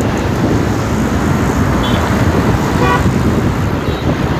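Dense city road traffic with a steady engine and road rumble, heard from a motorbike riding in it. A brief high beep near two seconds in and a short vehicle horn toot about three seconds in.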